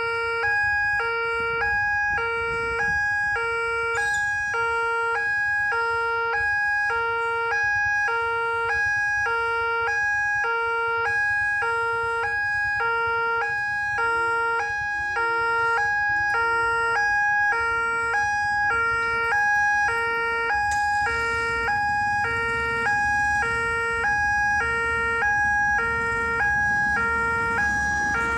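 Railway level-crossing warning alarm sounding an electronic two-note chime, the notes alternating steadily over and over. From about three-quarters through, the rumble of an approaching diesel locomotive grows under it, loudest at the very end as the train reaches the crossing.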